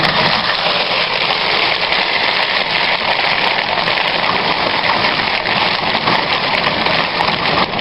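Foot-pedal rice thresher running: its spinning drum strips grain from rice stalks, making a steady rushing hiss.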